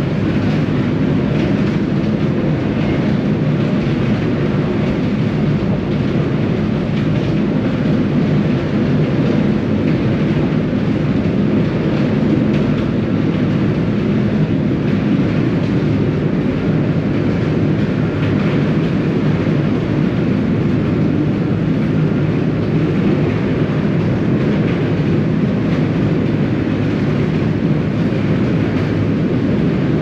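Washington State Ferries car ferry underway, its engines and hull giving a steady low drone that holds even throughout.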